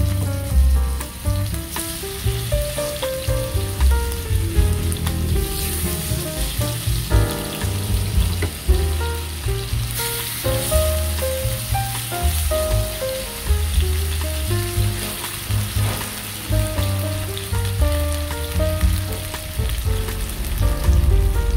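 Chicken breast fillets sizzling as they fry in hot oil in a nonstick pan, a steady crackling hiss. Background music with a melody and a bass line plays along.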